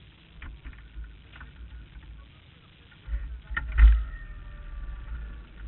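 Low rumble of idling vehicles around the stopped sprint car, with a heavy thump a little under four seconds in, followed by a faint steady whine.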